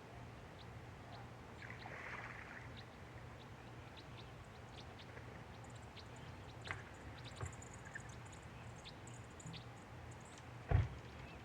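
Quiet river water ambience with small splashes and scattered ticks, faint high chirps through the middle, and a single low thump near the end.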